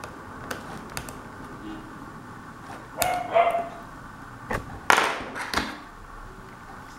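A few short, sharp barks or yelps, the loudest about five seconds in, over small clicks from handling the laptop's parts.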